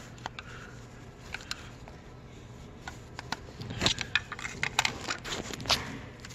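Scattered light clicks and scrapes of a flat-blade screwdriver and gloved hands handling the loosened VVT solenoid on top of the engine, coming thicker about four seconds in.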